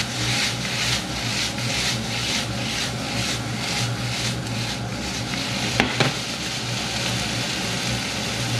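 Food sizzling in a very hot frying pan where a splash of vinegar is boiling off, turned and stirred with a utensil in regular strokes about two and a half times a second for the first five seconds. About six seconds in, the utensil gives two sharp clicks against the pan.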